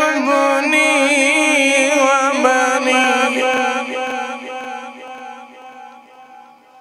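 A man reciting the Quran in the melodic tilawat style, holding long notes with wavering ornaments; the phrase breaks into shorter notes and dies away over the last few seconds.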